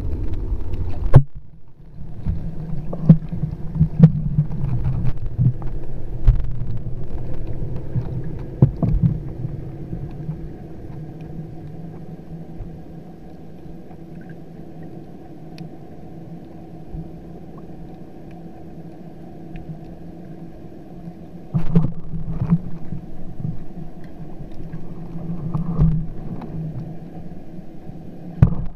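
Underwater camera audio: a steady low droning hum, with repeated knocks and thuds in the first several seconds and again from about three-quarters of the way through.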